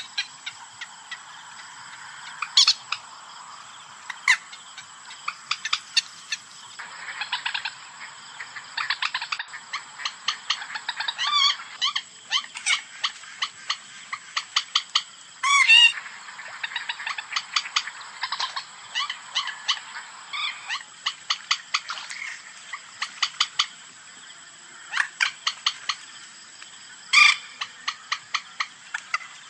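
Common moorhen calling: short sharp notes and quick runs of clicking notes, with a few louder wavering calls scattered through.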